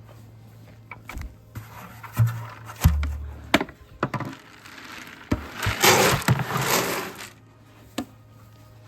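Scattered wooden knocks and thumps, then a scraping rustle lasting about a second and a half, the loudest sound, followed by one last knock.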